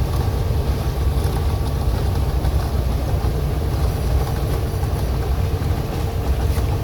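An engine running steadily at idle: an even low rumble with a faint steady hum above it.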